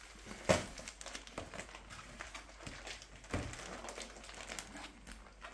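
Plastic wrapping of a rolled, compressed pillow crinkling and rustling as it is handled, with one sharp crackle about half a second in. A duller thump comes about three and a half seconds in.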